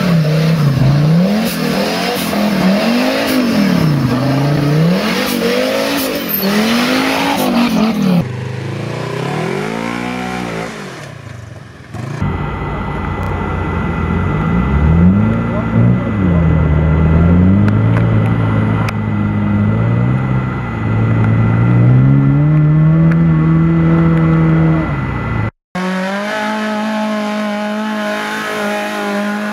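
Engines of modified off-road trial 4x4s revving up and down again and again as they crawl up steep, muddy slopes. The sound breaks off at several cuts between vehicles, and near the end one engine holds a steadier pitch.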